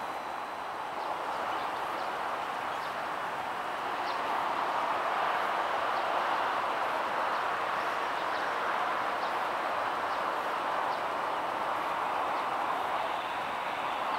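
Steady rushing outdoor background noise that swells a little in the middle and eases again, with faint short high chirps scattered through it.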